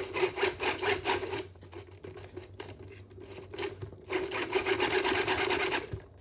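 Hard parts scraping and rubbing against each other in two rasping spells, the first about a second and a half long and the second about two seconds, with quieter scraping between them.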